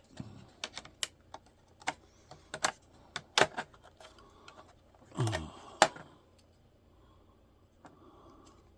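Small plastic and metal laptop parts being handled, giving a run of sharp irregular clicks and light clatter, with a duller knock about five seconds in; the clicks thin out over the last few seconds.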